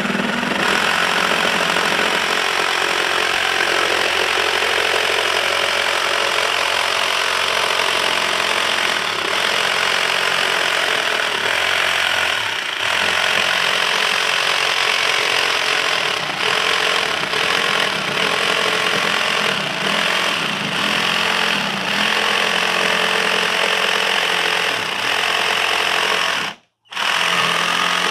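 A 21V cordless jigsaw cutting a curved line through a wooden board, running steadily with the blade chattering through the wood. It drops out completely for a moment near the end, then carries on.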